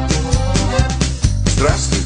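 Background music with a steady beat over a bass line and a melody.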